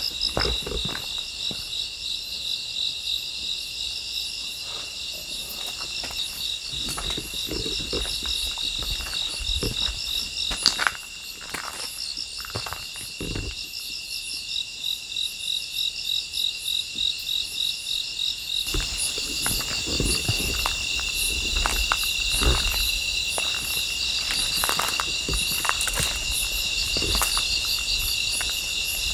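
A chorus of night insects, crickets among them, chirping in steady pulsing trills; it grows fuller about two-thirds of the way in. Under it are scattered footsteps and the rustle of weeds being brushed aside.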